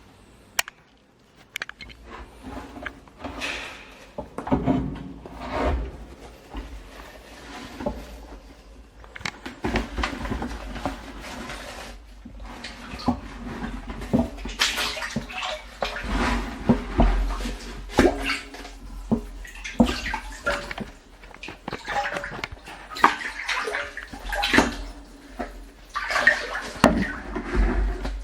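Rubber boots wading through shallow floodwater: irregular splashing and sloshing with sharp knocks, busier from about nine seconds in.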